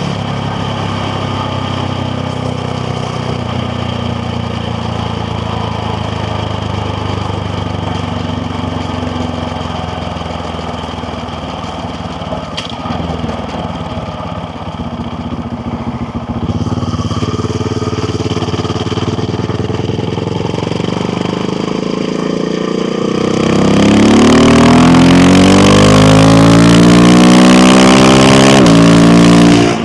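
KTM Duke 690R's single-cylinder engine running steadily at part throttle. About 23 seconds in it is opened up hard and gets much louder, its pitch climbing steeply as the bike accelerates, with rising wind rush and a brief dip in pitch near the end.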